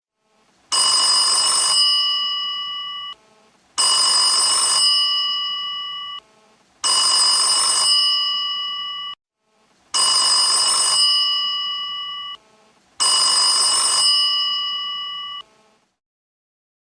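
Vintage dial telephone's bell ringing five times, about three seconds apart. Each ring is about a second of rapid clapper strikes, followed by the bell tones dying away.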